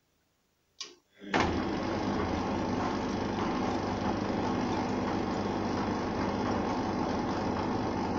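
Arçelik 3340SJ front-loading washing machine turning its drum in a wash tumble with a wet, heavy load. A click comes about a second in, the motor starts just after and runs steadily for about seven seconds, then winds down near the end.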